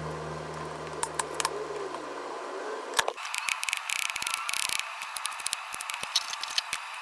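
A soft music tail fades out. About three seconds in it gives way to irregular light clicks, taps and rustling, like small household objects being handled close to the microphone.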